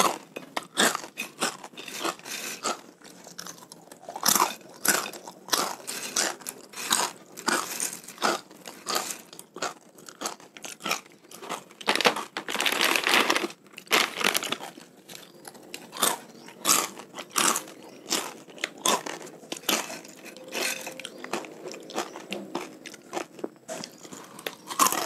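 Close-miked crunching and chewing of crispy fried macaroni snack: many short, irregular crunches as mouthfuls are bitten and chewed.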